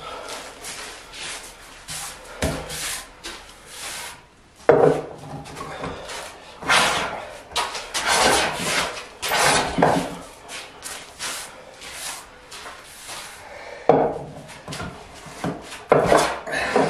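Metal hand plane shaving the face of an oak slab tabletop in repeated strokes, each a rasping swish of the blade through the wood, a second or two apart.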